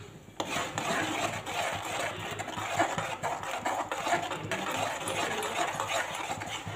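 Metal spoon stirring thick tomato-onion gravy in a steel kadai: steady, rapid scraping against the pan and wet slopping of the gravy, starting about half a second in.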